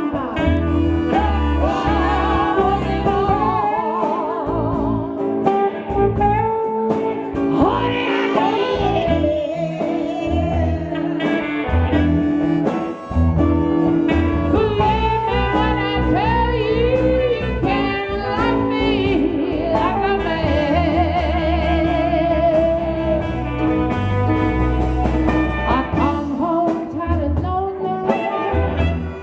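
Live blues band playing with a singer, over a steady low bass line.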